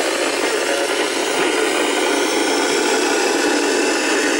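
Amateur radio receiver's speaker giving out steady, loud FM static while tuned to the International Space Station's voice downlink, the signal too weak to be heard through it: very difficult reception with the station low on the horizon.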